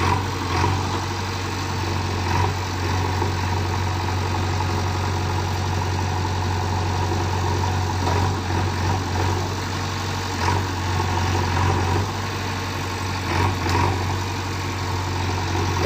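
JCB 3DX backhoe loader's diesel engine running steadily at a low, even pitch, with a few faint knocks.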